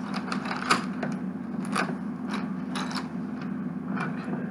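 Plastic LEGO pieces clicking and scraping against each other and a wooden tabletop as they are picked from a pile and fitted together: a handful of sharp separate clicks, the loudest about two-thirds of a second in.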